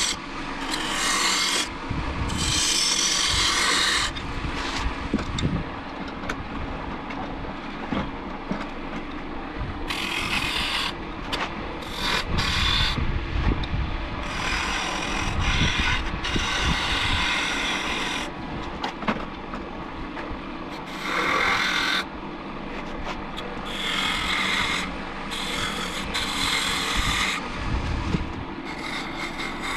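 A wood lathe runs with a steady hum while turning tools, among them a round-nose scraper, cut a spinning glued-up hardwood furniture leg (which the turner takes for maple). The cutting comes as a rasping hiss in repeated bursts of one to three seconds as the tool is pressed in and eased off.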